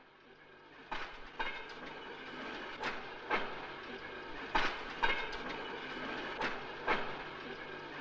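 Steel wheels of a railway motor trolley clacking over rail joints: sharp clicks in pairs about half a second apart, repeating every couple of seconds over a steady hiss of the ride.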